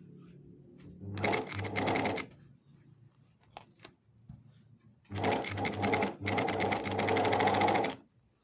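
12-needle industrial sewing machine running in two bursts of stitching, a short one about a second in and a longer one of about three seconds, as a test after its thread tensions have been tightened.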